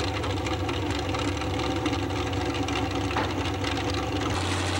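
Engine of a pickup pull truck idling steadily; the sound changes abruptly near the end.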